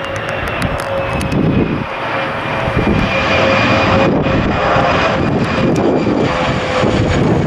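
Bombardier Challenger business jet's twin rear-mounted turbofan engines whining at approach power as it comes in to land, growing louder over the first few seconds and then holding steady. A high whine sits over a lower hum, with gusty wind buffeting the microphone.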